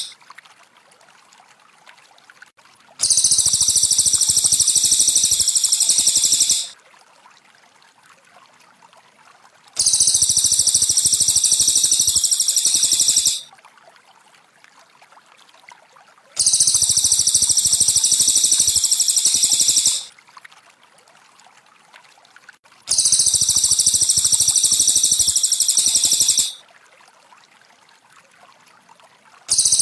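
Looped recording of cililin (Javan pygmy tit) song mixed with trickling water: very high, dense chirping with water noise beneath, coming in bursts of about three and a half seconds that repeat roughly every six and a half seconds, with much quieter gaps between.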